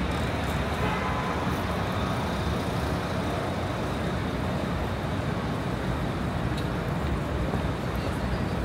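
Steady city street traffic noise: a constant low rumble of vehicles with no single event standing out.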